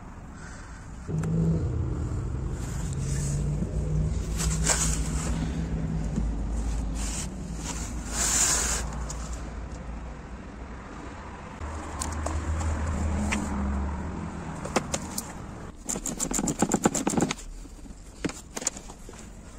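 A vehicle engine running at a steady low hum, which fades and comes back. Over it are scattered clicks and scrapes of hand tools on the car's bumper, with a quick run of rapid clicks near the end.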